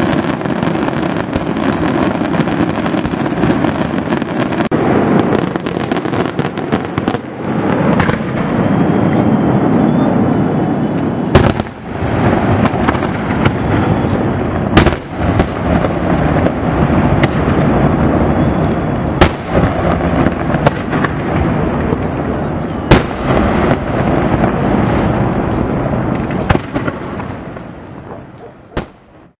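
Fireworks display: aerial shells bursting in a dense, continuous crackle and rumble, with several sharp, louder bangs standing out, fading out near the end.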